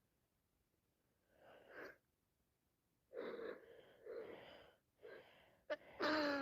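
A person with a heavy head cold builds up to a sneeze with several short gasping breaths, then sneezes loudly near the end with a drawn-out pitched cry.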